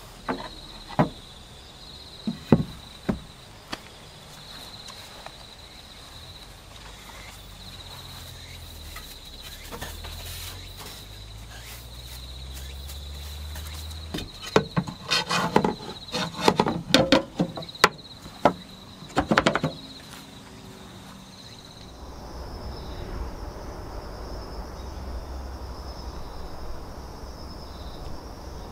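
A removable wooden stopper board knocks and clunks against the wooden cargo-bed frame as it is handled: a few sharp knocks at the start, then a quick run of louder clunks in the middle. Insects trill steadily behind it. Near the end the background shifts to a different, slightly higher insect trill over a soft hiss.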